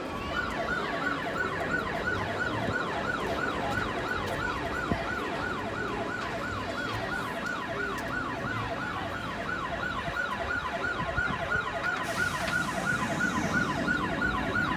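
A siren yelping in a fast, even rise and fall, about three times a second, that cuts off near the end.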